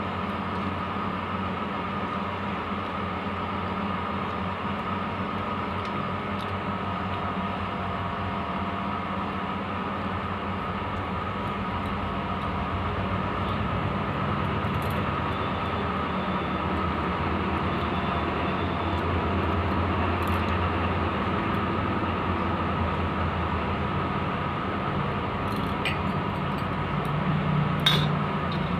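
Steady low mechanical hum, swelling slightly in the middle, with a few faint clicks and one sharp click near the end.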